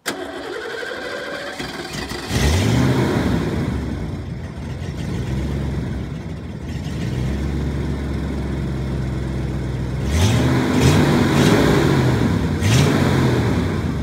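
1989 Ford F-150's engine running and being revved, its pitch rising and falling about two seconds in, then revved three more times in quick succession near the end.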